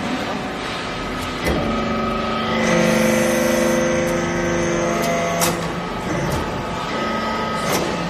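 Hydraulic metal-shaving briquetting press working: a steady machine hum with several tones grows louder from about a second and a half in as the ram presses down into the shavings, then eases off about five and a half seconds in. Sharp clicks come about a second and a half in, at about five and a half seconds, and near the end.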